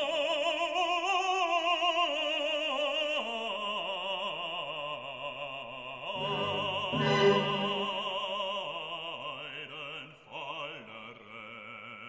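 Background music: a classical operatic voice singing long notes with a strong vibrato over an orchestra, the phrase fading toward the end.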